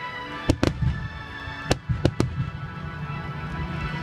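Aerial firework shells bursting: five sharp bangs in two quick groups in the first half, over a continuous low rumble. Music with long sustained notes plays throughout.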